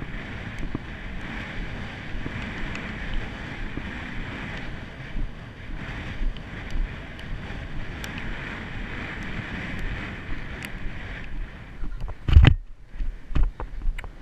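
Wind rushing over the camera microphone as a Haflinger horse canters over grass, its hoofbeats thudding underneath. The rush drops away about eleven seconds in, followed by a loud thump and a few sharper knocks.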